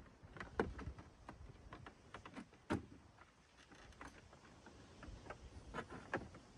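Faint, irregular clicks, ticks and scrapes of plastic-coated wire being threaded through holes in a scooter's plastic front fairing and pulled tight by hand.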